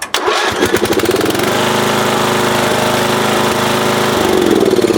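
Old lawn tractor's engine cranked by the starter and catching almost at once, then running steadily, with a change in its note about four seconds in. It starts promptly while still warm, the sign that the new ignition coil has cured its failure to start when hot.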